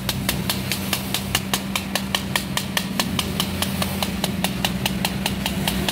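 A stiff brush scrubbed fast back and forth over the plastic housing of a fuel pump module, an even scratching at about seven strokes a second. A steady low hum runs underneath.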